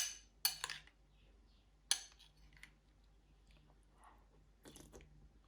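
A few sharp clicks and clinks of small hard objects being handled: one at the start, two about half a second in, one about two seconds in, and a short cluster near the end.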